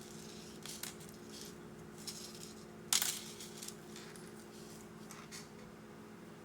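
Light metallic clicks and jingles of a metal necklace chain being handled while it is untangled, with a sharper click about three seconds in, over a faint steady hum.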